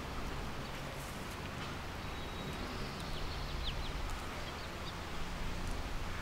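Quiet outdoor ambience: a steady low rumble under a faint hiss, with a few brief high bird chirps about three to four seconds in.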